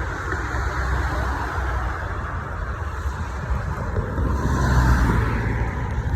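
Road traffic: cars passing on a city street, a continuous low rumble of engines and tyres.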